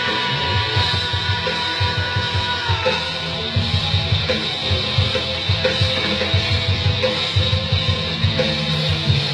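Rock band music with electric guitar and drum kit, the drums keeping a steady beat; a held note slides down in pitch about three seconds in.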